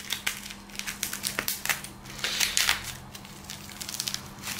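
Clear plastic wrapping crinkling and crackling as it is pulled off a new flexible tripod, in a dense run of sharp crackles that thins out about three seconds in.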